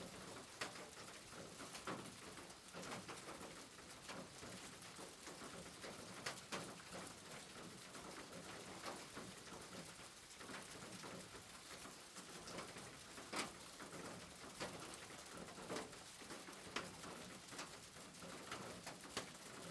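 Rain on a roof: a steady soft patter with louder single drops and drips striking at irregular moments.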